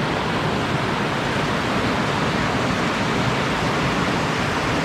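Steady rush of water pouring over a river waterfall.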